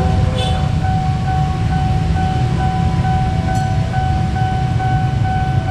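Railroad crossing alarm ringing in a rapid, even on-off pattern, over the loud low rumble of a train passing through the level crossing.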